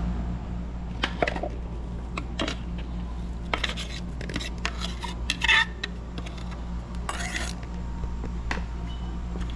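Kitchen utensils clinking and clattering against bowls and dishes: scattered sharp clinks, the loudest about five and a half seconds in, and a short scrape about seven seconds in, over a steady low hum.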